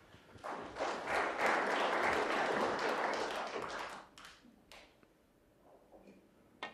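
Arena crowd applauding for about three and a half seconds, then dying away. Near the end comes a single sharp click of the cue tip striking the cue ball.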